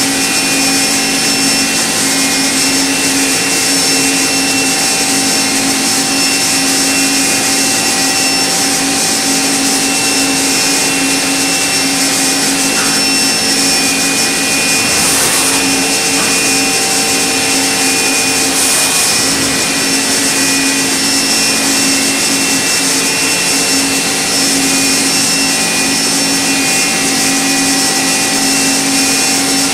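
Okuma MB-5000HII horizontal machining center's spindle running at steady speed as the tool cuts a small metal block: a constant hum of several steady tones over an even hiss, unchanging throughout.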